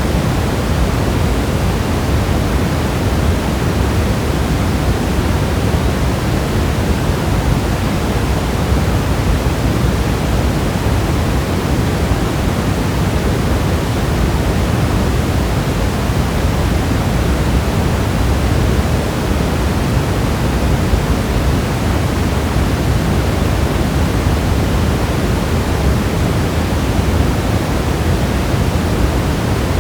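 Steady, dense rainfall sound for sleep: an even, unchanging hiss, heaviest in the low end, with no separate drops or thunder standing out.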